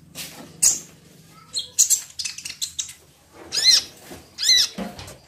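Sunbird (kolibri ninja) calling: a string of short, sharp, high-pitched chirps, with two longer arched notes about three and a half and four and a half seconds in.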